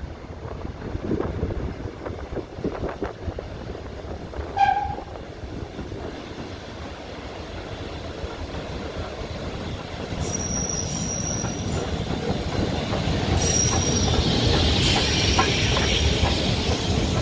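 Steam locomotive giving one short whistle blast about four and a half seconds in. Then the rumble of the engine and its coaches builds as the train runs in and passes close by, with high metal squeals and a hiss of steam near the end.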